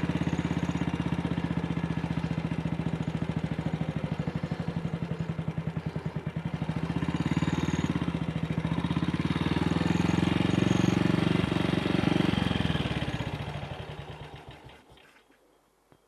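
AJS Model 8 single-cylinder motorcycle engine ticking over with slow, distinct firing beats. It picks up and runs louder for a few seconds, then dies away to a stop about fourteen seconds in. The bike has a misfire that the owner can't explain, unless something has got into the carburettor.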